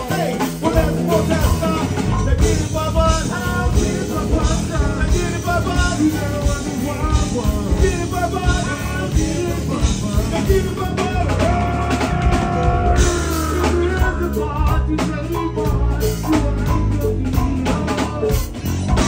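Live go-go band playing: drum kit and percussion keep a busy beat under a pitched melody line, with singing.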